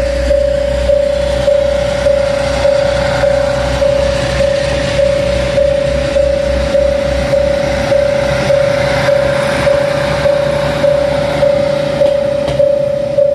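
Railway level-crossing warning bell ringing, one steady, evenly repeated tone a little under twice a second, over the low engine rumble of a diesel railcar pulling past, which fades out about two-thirds of the way through.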